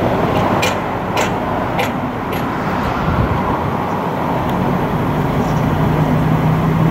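Steady road traffic noise, with a low engine hum that comes in about halfway through and holds, and a few light ticks in the first two seconds.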